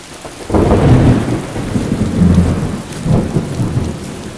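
Thunder rolling in several deep swells over a steady hiss of rain.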